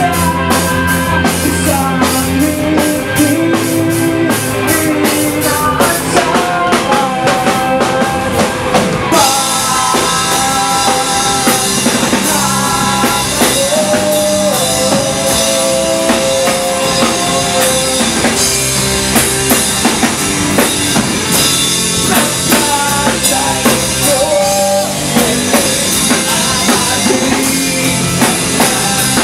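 Live rock band playing loud: drum kit with a steady beat, electric guitar, and vocals sung into microphones. The sound thickens about nine seconds in.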